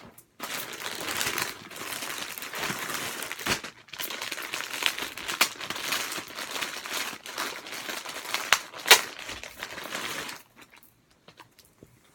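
Packaging crinkling and rustling steadily as shirts are unpacked and handled, with sharp crackles throughout. It stops about ten seconds in.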